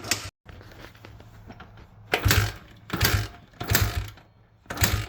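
A 2006 Honda CRF100F's single-cylinder engine being cranked over on the kick-starter without firing. From about two seconds in come repeated strokes, roughly one every three-quarters of a second. The engine turns over without the clicking or knocking it had, showing that the repair has cured it.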